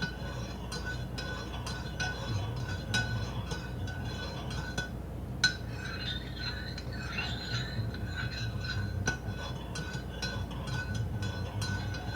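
Spoon stirring coffee in a mug, many light clinks against the sides with a faint ringing tone, and one sharper clink about five and a half seconds in.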